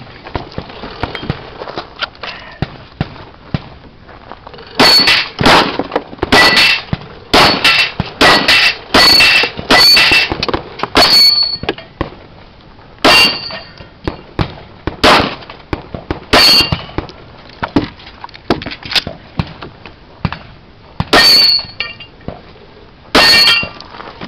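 Smith & Wesson M&P 9 mm pistol firing a string of about twenty shots at steel targets. Many shots are followed by a short metallic ring from the struck plates. The shots come in quick groups, with a pause of a few seconds before two final shots near the end.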